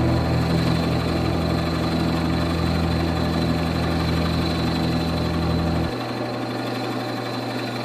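Benchtop drill press motor running with a steady hum while drilling pin holes through a knife handle scale; about six seconds in the hum drops to a lower, quieter tone.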